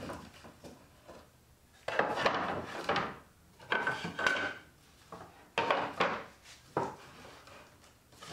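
Thin plywood pieces being handled and set down on a wooden worktable, clattering and knocking against one another in a few bursts, with a short single knock near the end.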